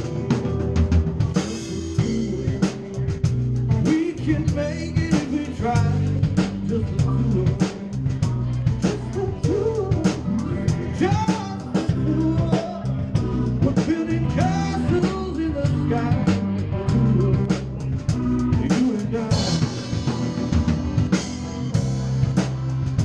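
Live band playing, with the drum kit loudest: steady kick, snare and cymbal strokes over a bass line and a melodic lead line.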